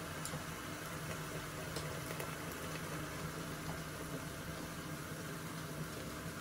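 Halwa mixture of oil, jaggery and milk steadily bubbling and sizzling in a pot on a gas flame as it is roasted.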